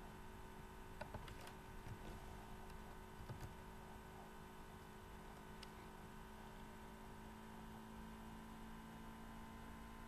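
Near silence: a faint steady electrical hum, with a few faint clicks in the first few seconds.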